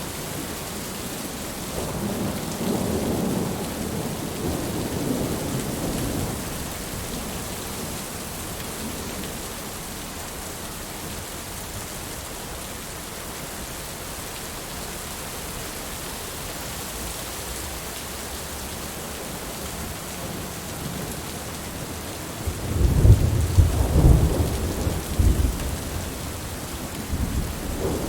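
Steady heavy rain hissing throughout. Thunder rumbles softly a couple of seconds in, and a louder roll of thunder comes about 23 seconds in.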